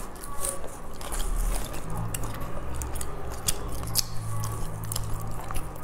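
Close-up chewing of a soft, sticky green rice-flour pastry (qingtuan) filled with salted egg yolk and pork floss, full of small wet mouth clicks. A low steady hum sits underneath from about two seconds in.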